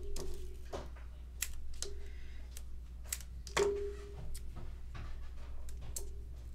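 Scattered light clicks, taps and rustles of hands handling a paper die-cut piece and a roll of thin 3D foam tape on a desk.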